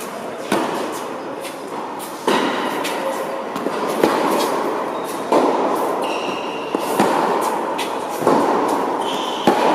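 Tennis rally on an indoor court: crisp racket-on-ball hits about every one and a half seconds, traded back and forth, over a steady background noise.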